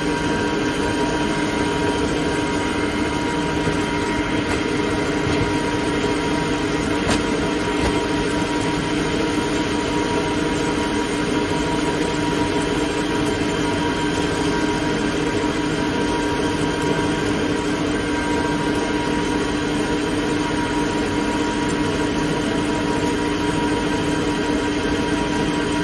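ALLES ALCK6163X1500 CNC lathe machining under flood coolant: the spindle and chuck run steadily with the coolant spraying. It makes a constant mechanical hum with a fixed whine that does not change.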